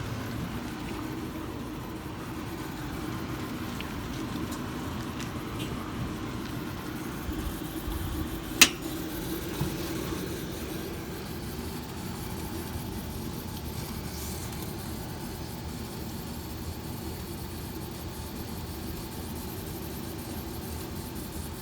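Steady mechanical hum of a running Trane central air-conditioning system, with one sharp click about eight and a half seconds in.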